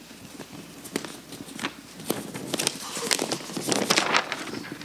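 Sheets of paper rustling and crackling as they are handled, in a run of irregular sharp clicks that grows louder after the first second.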